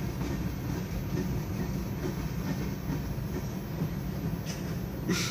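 Norfolk Southern mixed freight train rolling slowly by: a steady low rumble of the cars on the rails, with a brief sharp clack near the end.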